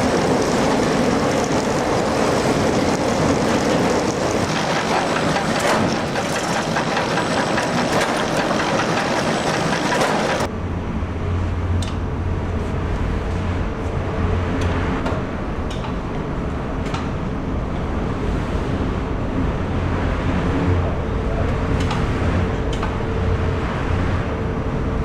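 Sawmill machinery running: a loud, even rush of noise that cuts off suddenly about ten seconds in, giving way to a low steady hum with a faint higher tone and scattered light clicks.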